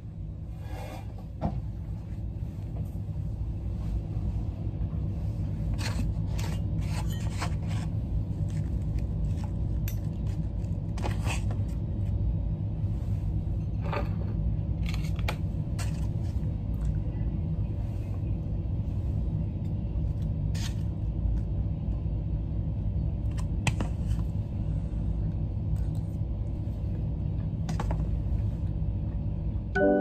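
A metal fork and spoon clinking and scraping against a plate of rice in scattered short, sharp clicks, over a steady low rumble in the room.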